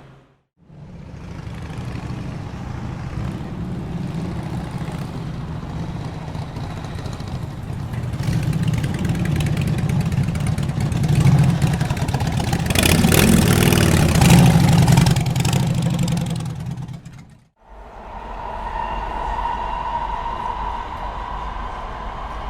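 City street traffic: a vehicle engine's low rumble goes on steadily and builds to a loud close pass, then fades out. Near the end a separate recording fades in, with a steady whining tone over a low hum.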